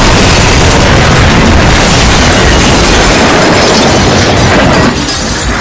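Train crash sound effect played very loud: a dense, continuous wall of crashing, booming noise with heavy bass, which drops off abruptly about five seconds in.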